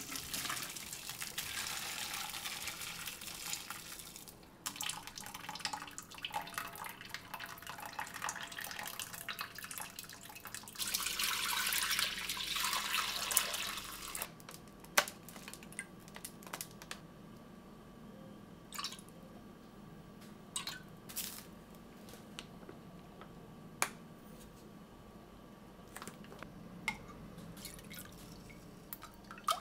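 Liquid running and splashing for about fourteen seconds, loudest near the end of that stretch as it is poured from a metal bowl into a clay donabe pot. After that come scattered light clicks and clinks of a metal spoon stirring in a glass measuring cup.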